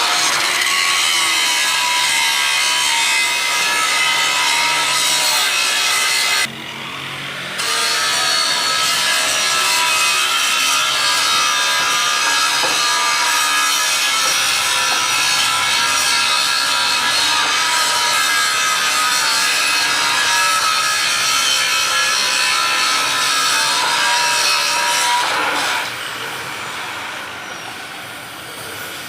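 Angle grinder working on steel, a steady loud whine with a dense hiss. It lets up briefly about a quarter of the way in, comes back, and near the end is taken off the work and falls away as the disc spins down.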